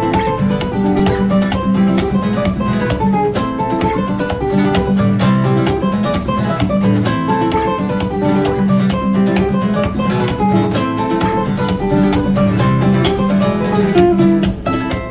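Background music: a fast plucked acoustic guitar piece in a flamenco style.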